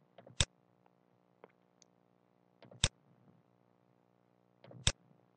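Computer mouse button clicks: three sharp clicks about two seconds apart, each with a softer click just before it, over a faint steady hum.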